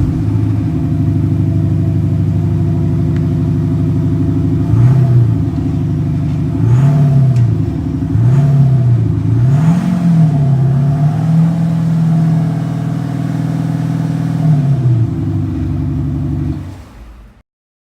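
Porsche Panamera 3.0 TDI's diesel V6 with a Kufatec Sound Booster PRO playing a synthetic sporty engine note: a steady low idle drone, then about five quick revs in the middle, each rising and falling in pitch, before it settles back to idle and fades out near the end.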